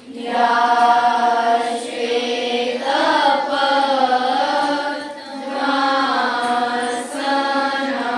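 Voices chanting a devotional prayer in unison, holding long drawn-out notes with short breaks every two or three seconds.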